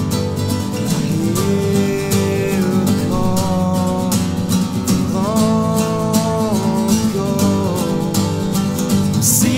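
Two acoustic guitars strummed and picked in a slow song, with a man's voice singing long held notes over them, each sliding up into pitch and held for a second or more.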